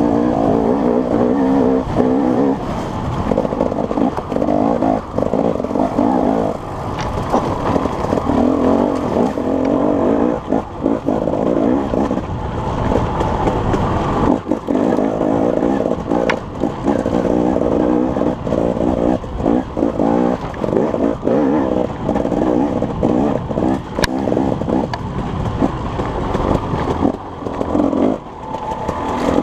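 Vehicle engine running under throttle, its pitch and loudness rising and falling repeatedly, with a few sharp clicks.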